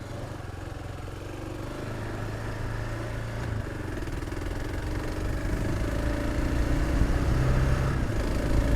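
Single-cylinder dual-sport motorcycle engine running at low revs, growing gradually louder with a few small rises in pitch.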